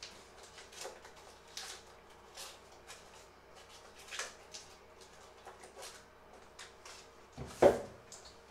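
Crinkly wrapper crackling in short rustles as a small wrapped item is unwrapped by hand, then one much louder knock near the end.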